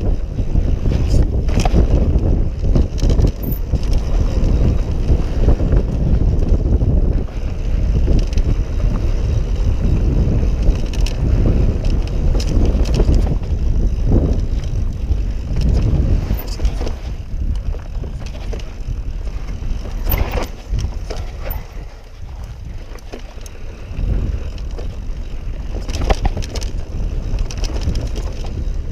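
Mountain bike riding fast down a dusty dirt trail: wind buffeting the camera microphone over the tyres rolling on loose dirt, with frequent knocks and rattles as the bike, a Yeti SB6 full-suspension, takes bumps. It goes quieter for a couple of seconds about three-quarters of the way through.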